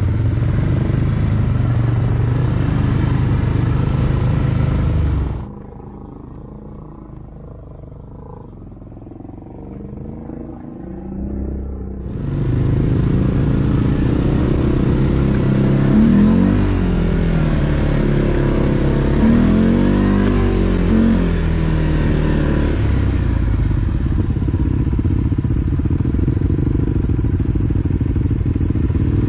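ATV engines running, revving up and falling back twice in the second half. The sound drops much quieter about five seconds in and comes back loud several seconds later.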